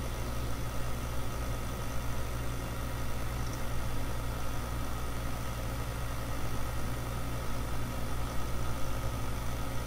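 Steady low electrical hum and hiss of the recording setup, with a faint steady whine, and a few faint taps from keys being typed.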